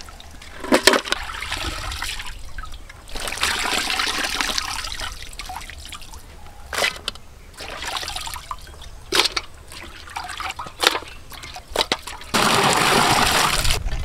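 Water trickling and dripping off handfuls of dressed quail lifted out of a bucket of water, with sharp splashes each time they are plunged back in, several times. Near the end a louder, steady rush of water takes over.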